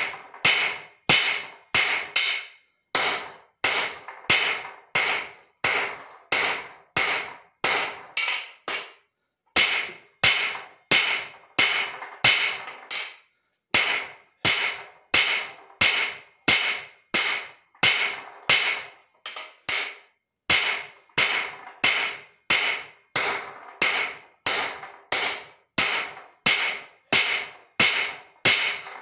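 Hand hammer striking leaf-spring steel on an anvil, a steady run of ringing blows about two a second, with short pauses about a third of the way in and again a little later.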